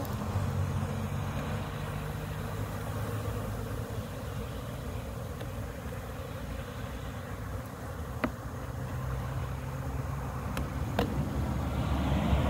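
Honeybees buzzing steadily around their exposed nest in a hollow wooden rail, with two sharp clicks about eight and eleven seconds in as hands work at the wood.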